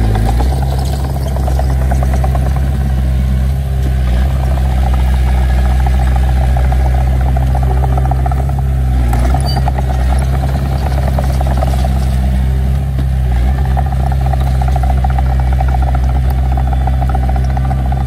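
Diesel engine of a Komatsu D21P crawler bulldozer running steadily under load while it pushes dirt, with the tracks rattling. A short squeal that falls in pitch comes about every four to five seconds.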